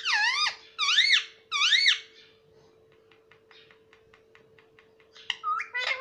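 Indian ringneck parakeet giving three shrill calls in quick succession, each rising and falling in pitch, then faint ticking, then another burst of calls near the end.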